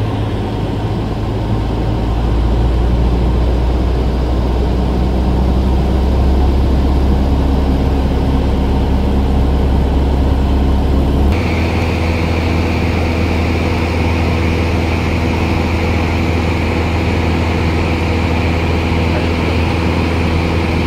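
Single-engine Cessna's piston engine and propeller droning steadily, heard from inside the cabin. The drone shifts abruptly in tone about halfway through.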